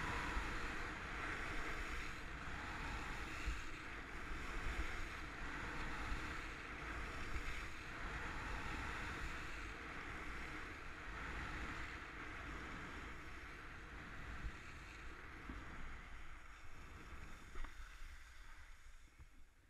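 Steady rushing of wind over a helmet-mounted action camera, with a low rumble and the hiss of skis sliding on groomed snow, fading over the last few seconds as the skier slows.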